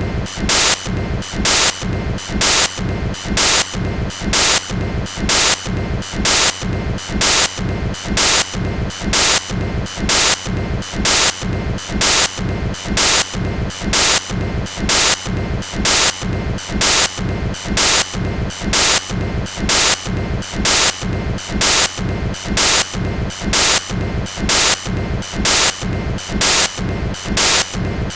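Freight cars of a passing train rolling by, their steel wheels clacking over the track in a steady rhythm about once a second, over a continuous loud rolling noise.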